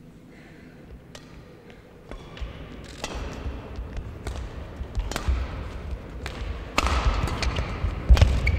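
Badminton rally: sharp racket strikes on the shuttlecock at uneven intervals, with players' footsteps thudding on the court, louder from about two seconds in.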